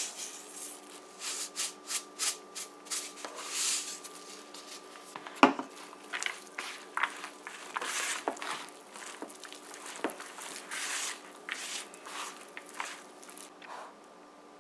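Hand mixing flour, chopped vegetables and wet split-pea paste in a plastic bowl: repeated rustling, rubbing and squishing strokes, with a sharp knock about five and a half seconds in. A faint steady hum runs underneath, and the mixing sounds stop shortly before the end.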